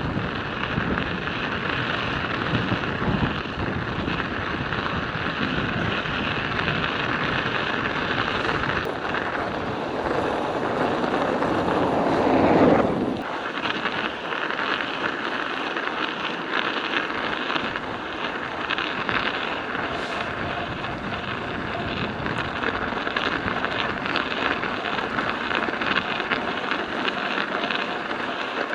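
Studded bicycle tyres crunching and clattering over icy, rutted road while riding, with strong wind buffeting the microphone. A louder rush falls in pitch from about ten seconds in and cuts off abruptly about three seconds later, after which the low wind rumble is lighter.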